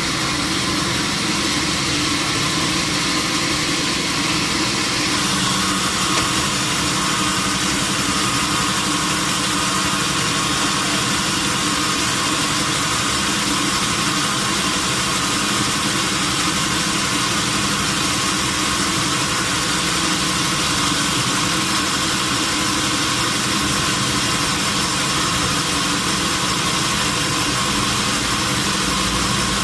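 Sawmill machinery running steadily: a constant engine-like hum with no clear cutting strokes.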